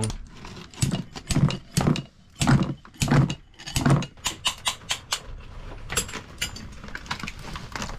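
Repeated metal-on-metal hammer blows on a steel rod, driving the worn thrust bearing out of its flange housing; sharp, irregular strikes about two a second that die away near the end.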